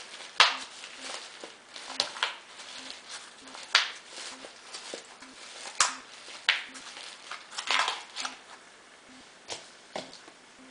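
Fingers pressing and firming potting soil around a freshly repotted aptenia in its pot: irregular crunching and rustling scrapes of soil, with leaves brushing.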